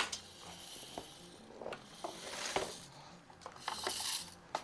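Handling noise: rubbing and rustling with scattered light clicks, as small objects are fumbled and moved about by hand.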